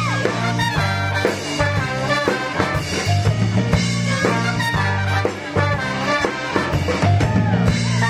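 Show choir performance music: an upbeat swing-style accompaniment with brass and a steady, driving bass line, with women's voices singing over it.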